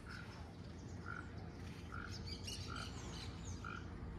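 An animal's short call, the same note repeated five times about a second apart, with quick bird chirps in between.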